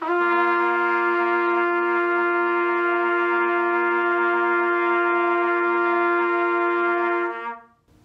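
Two trumpets played open, without valves, together holding one long steady tone each, a higher note and a lower note, for about seven and a half seconds before stopping.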